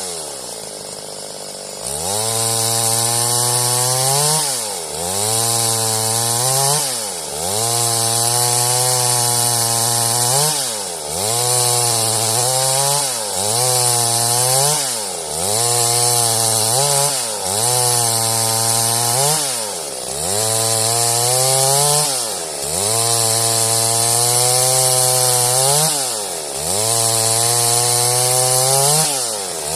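Stihl MS 382 chainsaw cutting wood. The engine starts quieter and lower for about two seconds, then runs at high revs, with the revs dropping sharply and climbing back roughly every two seconds throughout.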